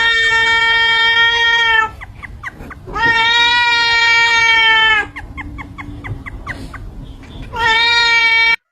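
A cat meowing: three long drawn-out meows at a steady pitch, the first two about two seconds each and the last shorter, cut off abruptly near the end.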